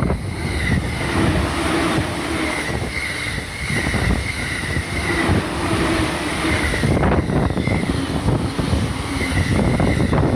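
Train running past on the rails, a loud steady rumble with a high whine that comes and goes, with wind buffeting the microphone.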